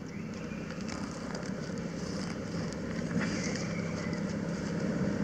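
Steady low rumble that grows gradually louder, with light crackles of dry leaves.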